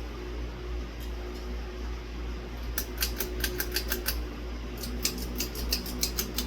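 Rapid runs of light, sharp clicks from ceiling-fan hardware being handled, starting a little under three seconds in, with a short break in the middle, over a steady low hum.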